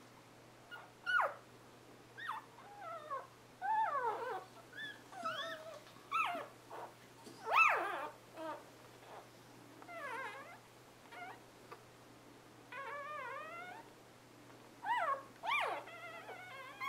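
Newborn Scottish Terrier puppies crying: short high cries that slide down in pitch, one after another from several pups. A longer wavering cry comes about thirteen seconds in.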